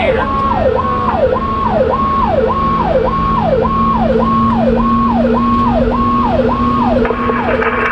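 Fire engine's electronic siren, heard from inside the cab, cycling fast at about two sweeps a second, each holding high and then falling. Underneath is the truck's steady engine and road rumble.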